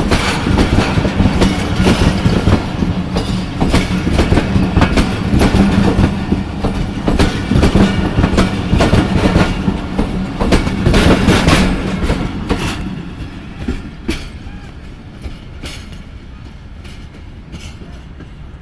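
Khyber Mail passenger coaches rolling past, wheels clattering over the rail joints in a dense run of clicks. The clatter falls away about two thirds of the way through as the last coaches draw off.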